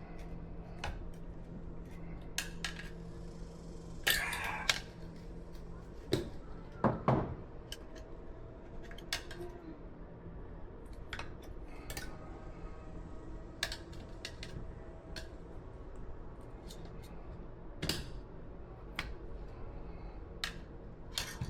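Metal tire irons clicking and scraping against the wheel rim while levering a tight rear tire bead onto a Honda CRF110F wheel. There are scattered sharp clicks, with louder scrapes about four and seven seconds in, over a steady low hum.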